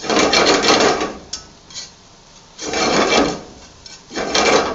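A wire whisk scraping rapidly around a cast iron skillet in three bursts, whisking a butter-and-flour roux into the sauce to thicken it.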